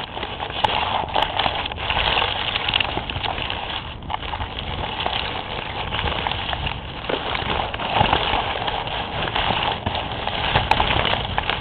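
Leaves and stems brushing and crackling against the camera's microphone as it is pushed through dense foliage, a continuous close rustle full of small clicks.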